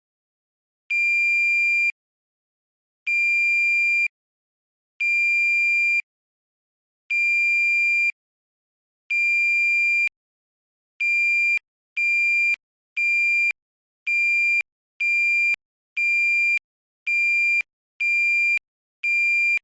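S4S Guardian Lite gas alarm sounding on detecting chlorine gas: a single high electronic beep tone, first about one second on and one second off, then about ten seconds in quickening to shorter beeps roughly once a second, as it steps up from Alarm 1 to Alarm 2.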